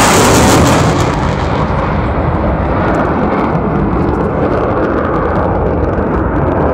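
Fighter jet flying overhead: loud jet noise at first, whose high hiss fades after about a second, leaving a steady low rumble as the jet moves away.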